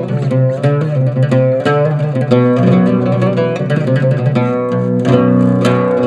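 Turkish oud with a maple and mahogany body played solo: a quick melodic run of plucked notes, several a second.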